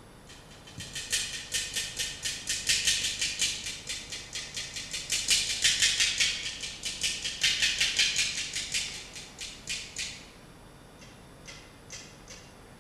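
Rattle-like percussion shaken in a fast, even rhythm of about five crisp strokes a second, swelling up, holding, then fading out about ten seconds in, with a few last strokes near the end.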